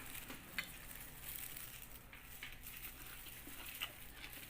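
Faint crunching of someone chewing raw bitter gourd salad, with a few soft clicks.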